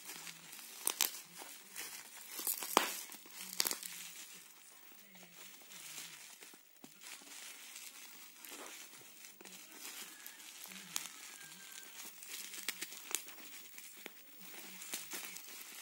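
Plastic bubble wrap around a small parcel being handled and unwrapped, crinkling, with sharp crackles that are loudest in the first four seconds and softer crinkling after.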